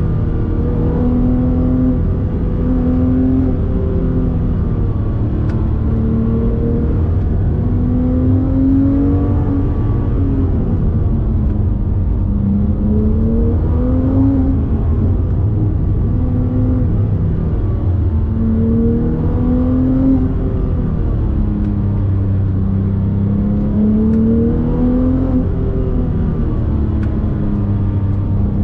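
Porsche 997 GT3 RS naturally aspirated flat-six heard from inside the cabin, pulling at moderate revs. The engine note rises and falls again and again as the car speeds up and eases off through a run of bends. A steady low road rumble sits underneath.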